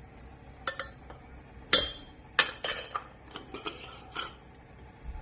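Kitchenware clattering: a string of sharp clinks and knocks of dishes and utensils, the loudest about a second and a half in, a few with a brief metallic ring.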